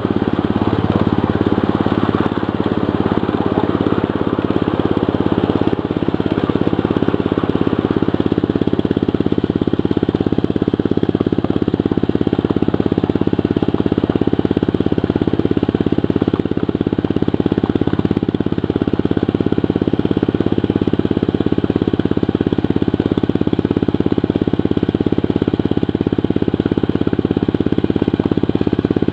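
The engine of a ridable 1/8-scale diesel-style locomotive running steadily while the train travels along the track.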